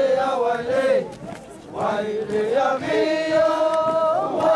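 A group of high women's voices singing a huaylia chant together: one phrase, a short break a little after a second in, then a second phrase ending on a long held note.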